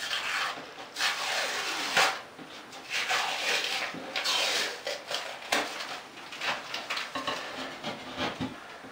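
Painted-over popcorn ceiling texture and the drywall's paper face tearing away from the ceiling as they are pulled off by hand: irregular ripping and rasping strokes, with a couple of sharper cracks.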